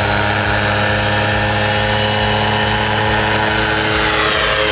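Paramotor trike engine running at takeoff power as the machine lifts off and climbs, a steady drone whose pitch shifts slightly near the end.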